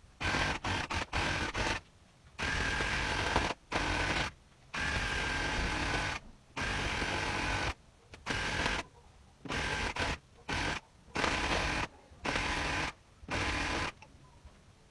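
A handheld electric rug-making tool runs in about a dozen short bursts, each starting and stopping sharply, with a steady motor tone under the mechanical noise.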